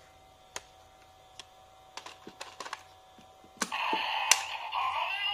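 Scattered plastic clicks from a Kamen Rider Saber DX Dragonic Booster toy being worked by hand. About three and a half seconds in, the toy's small speaker starts playing its electronic sound effect for a reading.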